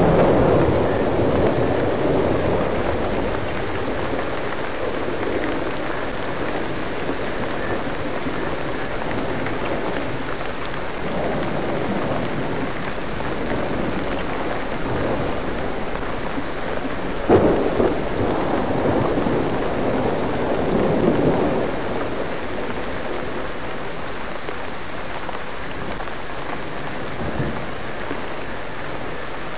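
Steady rain falling in a thunderstorm, with thunder rumbling near the start and several more times through the middle, including one sharp crack a little past halfway.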